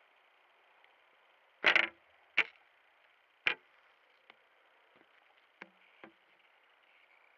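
Boots stomping on a baguette and crunching it: one loud crunch about two seconds in, two more crunches within the next two seconds, then a few faint crackles and scuffs.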